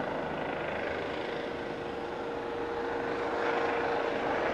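Low-flying air ambulance helicopter with a ducted fenestron tail rotor flying away after takeoff: steady rotor and turbine noise with a steady whine through it. It dips slightly about two seconds in and grows louder again near the end.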